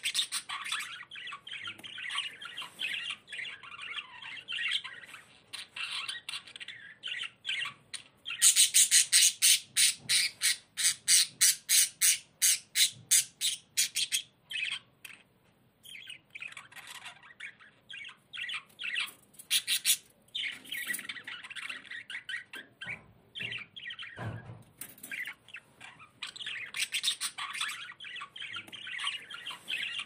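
Budgerigars chirping and warbling in a continuous chatter. About a third of the way in comes a run of loud, sharp calls, about three a second, for some six seconds.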